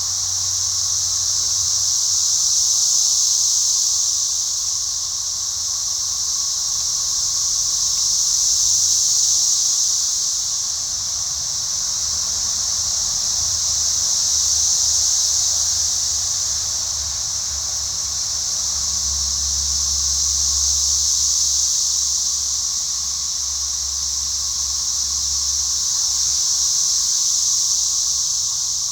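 A steady, high-pitched whirring drone that swells and fades about every six seconds, with a faint low hum beneath it.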